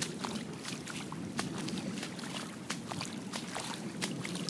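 Water on a flooded dirt driveway: a steady low rush with many irregular sharp drips and splashes.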